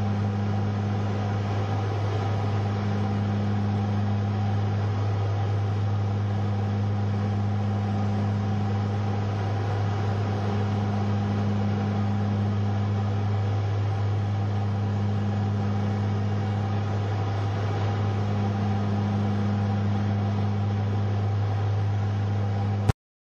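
Cabin drone of a small propeller aircraft's engines in cruise flight: a steady low hum with a slow throb that swells and fades every three to four seconds. It cuts off abruptly near the end.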